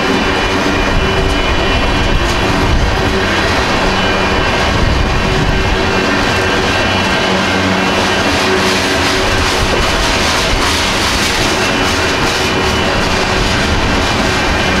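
Freight cars of a BNSF manifest train, mostly tank cars, rolling steadily past at a grade crossing: a continuous rumble of steel wheels on rail with occasional clicks.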